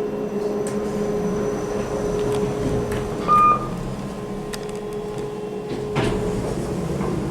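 2008 Kone MonoSpace lift with KSS 470 fixtures: a steady hum with a few light clicks in the cab, and one short electronic beep a little over three seconds in.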